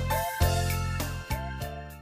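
Background instrumental music with sustained keyboard-like notes over a steady bass, the chords changing twice and the music fading out at the end.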